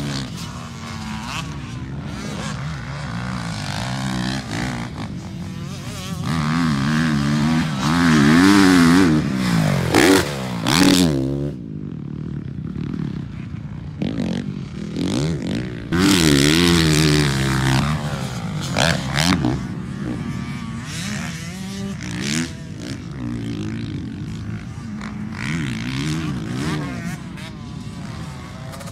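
Motocross dirt bike engines revving up and falling off as riders go around the track, the pitch rising and dropping again and again. The loudest passes come about eight to eleven seconds in and again around sixteen seconds.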